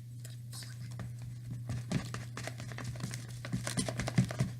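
Irregular small clicks and scrapes of a craft stick stirring slime ingredients in a bowl, over a steady low hum.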